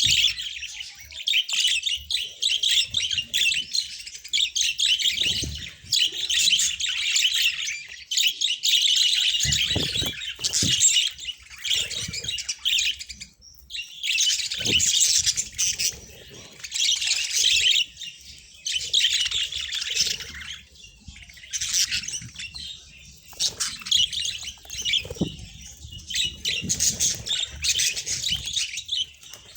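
Budgerigars chattering and warbling in dense, rapid bouts of a second or two with short breaks between them, with a few low thumps about ten seconds in.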